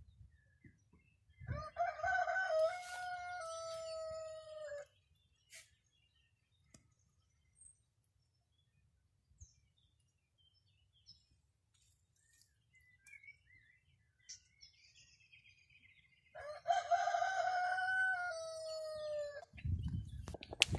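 A rooster crowing twice, each crow a long pitched call of about three seconds that drops in pitch at the end, the two well apart. A low rumble comes in near the end.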